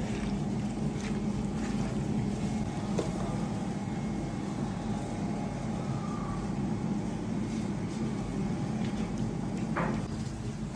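Steady low mechanical hum, with a few soft knocks as hands move chopped tomatoes and green peppers on a board and clay tray.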